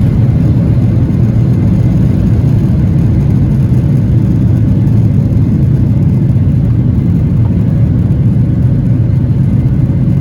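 Boeing 737-800's CFM56-7B jet engines running, heard from inside the cabin as a loud, steady low rumble.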